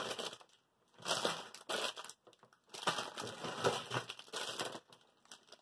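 Plastic and paper packaging crinkling and rustling in irregular bursts as products are handled and lifted out of a delivery box, with a short pause near the start.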